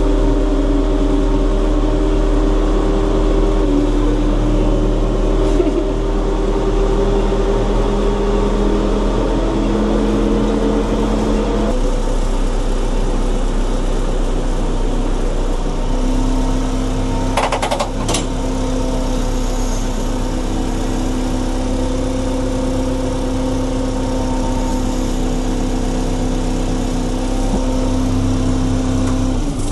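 Diesel engines of JCB backhoe loaders running as the machines drive by one after another, the engine note changing about twelve seconds in and again about sixteen seconds in. A short run of clicks comes about seventeen seconds in.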